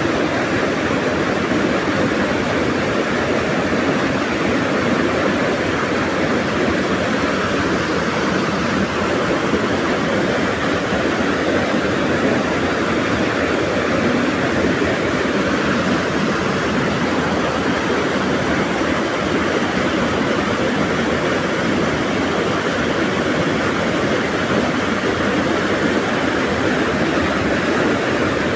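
Small waterfall pouring into a rocky pool: a loud, steady rush of churning white water.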